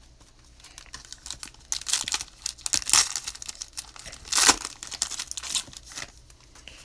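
Trading-card pack wrapper crinkling as it is handled and torn open, in irregular crackly rustles with louder tearing bursts about two, three and four and a half seconds in.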